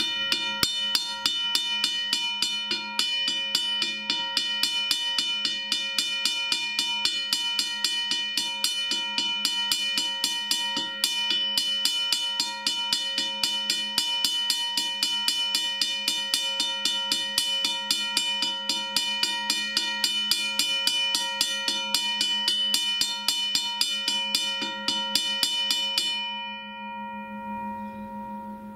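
Electric railroad crossing bell ringing: its striker hammers the steel gong in a fast, even series of strikes, each leaving a steady metallic ring. About 26 seconds in the striking stops and the gong rings on, fading away.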